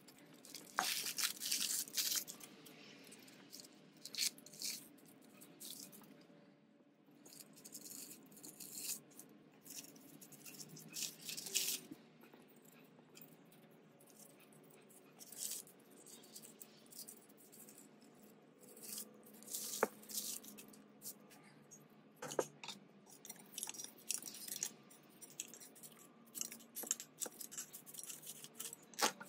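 Handling noise from the housing of a Thomas 600-8 airbrush compressor being turned and fitted by hand: scattered light clicks, knocks and rustles, with paper crinkling.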